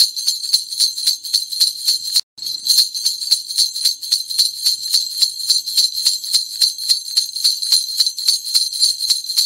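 Jingle bells shaken in a steady rhythm, about four shakes a second, breaking off for a moment about two seconds in.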